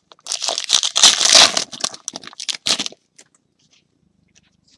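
Foil trading-card pack wrapper crinkling and tearing as a pack is opened, dense for about three seconds and loudest near the middle, then stopping.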